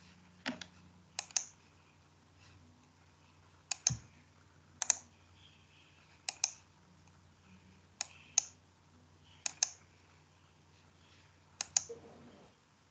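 Computer mouse clicking: sharp clicks, most in quick pairs, about every one and a half seconds, over a faint steady hum.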